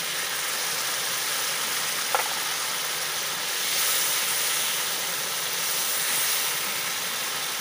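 Spice paste and tomato paste sizzling in hot oil in a kadai while a wooden spatula stirs it: a steady hiss that swells a little in the middle. One short knock about two seconds in.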